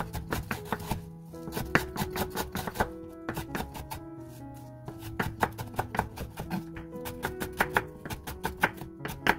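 Chef's knife mincing green onion on a wooden cutting board: quick runs of sharp knife strikes against the board, broken by short pauses, over background music.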